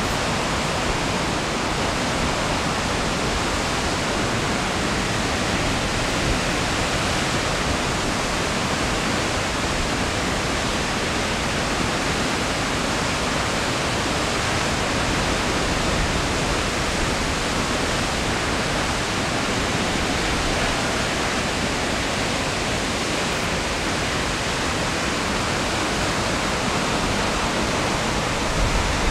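Brandywine Falls' 70-metre waterfall: a steady, even rush of falling water.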